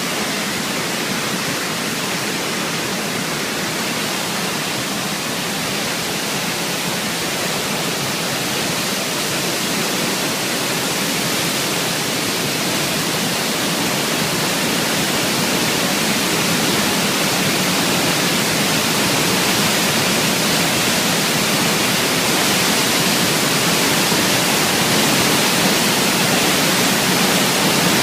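Waterfall swollen by typhoon rain, pouring down hard in a steady, loud rush of water that grows slightly louder over the stretch.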